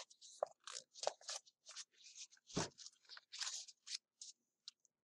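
A thick stack of paper banknotes being flipped and fanned through by hand: a quick, irregular run of crisp flicks and rustles that stops shortly before the end.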